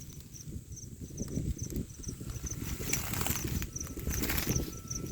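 Wind blowing across the microphone, with gusts picking up about three seconds in. An insect chirps steadily throughout in short, high, regular pulses, about two a second.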